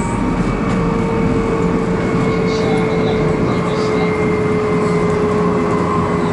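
Shinkansen running noise heard inside the car's vestibule: a steady rumble and hiss with a thin whine that slowly drops in pitch as the train slows.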